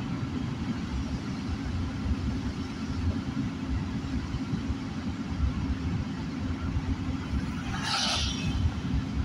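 Steady low rumble of a car's engine and tyres on a wet road, heard from inside the cabin. About eight seconds in comes a brief rushing hiss of tyre spray as an oncoming vehicle passes on the wet road.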